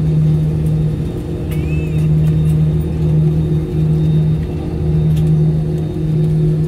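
Airbus A320 cabin noise on the ground after landing: a steady low drone of the engines and airframe, with a hum that swells and dips about once a second.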